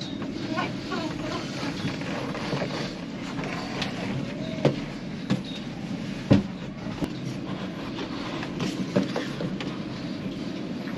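Steady low rumbling background noise with a few sharp knocks, the clearest about halfway through.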